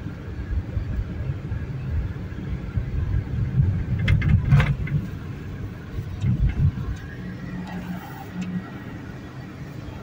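Car cabin on a rutted dirt road: a steady low rumble of the tyres and engine, with knocks and rattles as the car jolts over bumps, loudest a little before the middle and again a little after.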